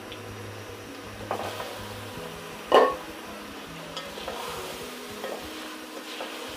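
Wooden spatula stirring raw polao rice in an aluminium pot over the heat, the grains scraping and rustling against the metal with a faint sizzle from the oily masala beneath. One sharp knock or scrape of the spatula on the pot, nearly three seconds in, is the loudest sound.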